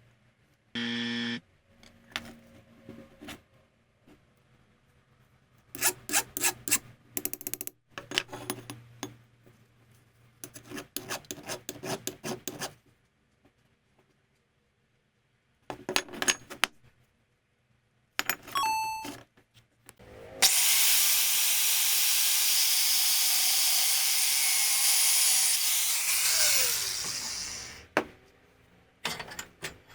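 Workshop handling noise: metal parts clicking and clattering in several bursts. A power tool then runs for about seven seconds with a loud, even hiss-like noise and winds down with a falling tone.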